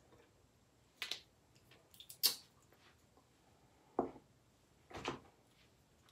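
A handful of short clicks and knocks from makeup tubes and their caps being handled: lip gloss wands pulled out and put back, a tube set down and another picked up and opened. The loudest comes a little over two seconds in.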